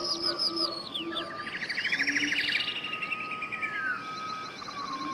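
Birds chirping: a run of quick arched chirps, a fast trill about two seconds in, and a falling whistled call near four seconds, over a thin steady high whistle.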